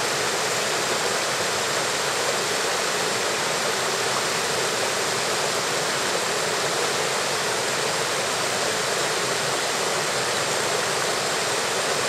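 Mountain stream rushing steadily over rocks and small cascades.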